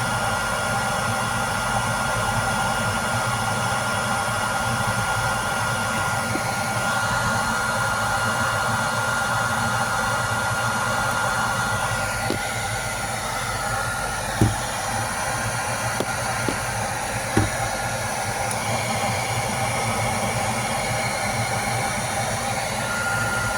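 Handheld hair dryer blowing hot air steadily through a PVC pipe extension to melt ice off a frozen refrigerator ice maker. A thin whine in its sound stops about halfway, and a few light knocks come in the second half.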